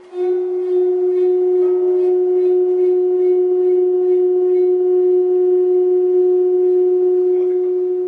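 Large round metal Chladni plate sounding one loud, steady, sustained tone with fainter overtones, played with a ball-headed mallet at its rim. It starts abruptly and begins to fade near the end.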